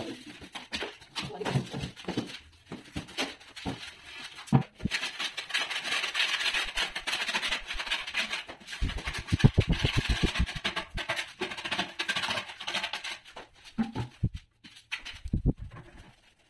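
Steel trowel scraping and spreading wet cement mortar over the back of a countertop slab, in a long steady stretch of scraping through the middle. Scattered knocks come early on, and a run of dull knocks falls about two thirds of the way in.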